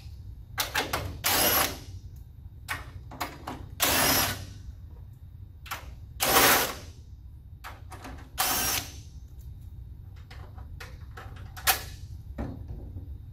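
Cordless drill/driver run in about five short bursts, each winding up and down in under a second, backing out the screws that hold the sheet-metal airfoil on top of an evaporator A-coil. Small clicks and clatter of handling come between the runs.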